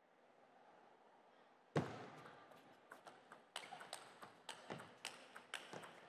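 Table tennis rally: a celluloid ball clicking off the paddles and table in quick alternation, about three or four clicks a second, after a loud thud a little under two seconds in.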